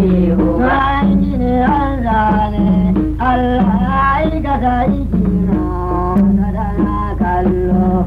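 Hausa praise song: singing with drum accompaniment, the sung line rising and falling over a repeated low held note.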